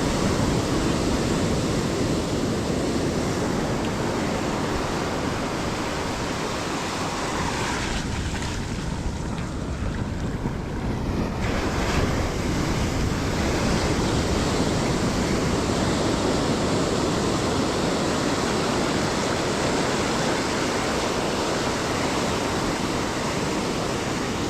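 Surf washing onto a beach, with wind buffeting the microphone. The hiss of the wash thins for a few seconds about eight seconds in, then comes back.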